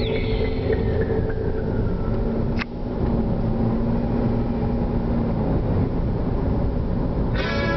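Steady road and engine rumble heard from inside a moving car's cabin. A short click with a brief drop in level comes about two and a half seconds in, and guitar music starts near the end.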